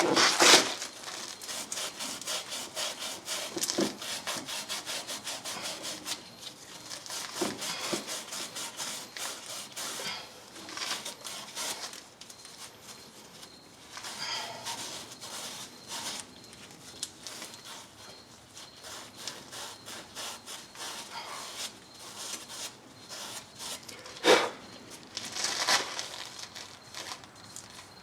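Quick back-and-forth rubbing or scraping strokes, worked by hand, about three or four a second in runs with pauses, with a sharp knock and a short scrape near the end.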